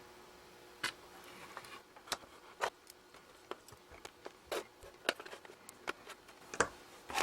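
Irregular light clicks and taps of small hard objects being handled on a workbench, over a faint steady hum.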